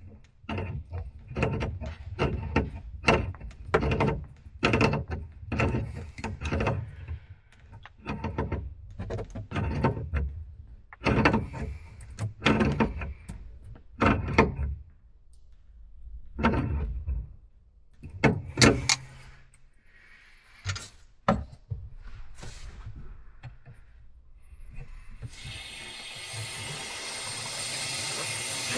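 A long run of short knocks and clunks from hands-on installation work, some close together and some spaced out. Near the end, water begins running with a steady hiss.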